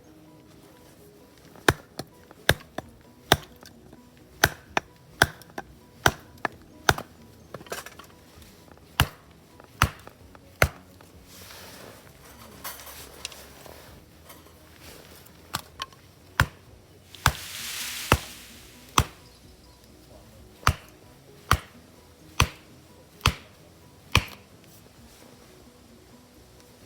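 A hand axe chopping firewood: about twenty sharp strikes a little under a second apart, in two runs with a pause of a few seconds in the middle.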